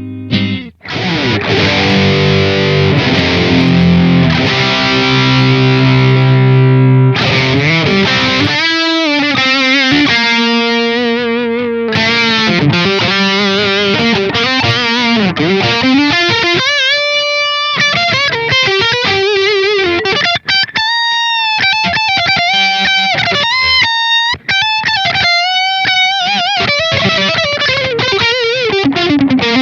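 SQOE SEST960 HSS electric guitar played with distortion: thick, sustained chords at first, then, about seven seconds in, a single-note lead full of string bends and vibrato.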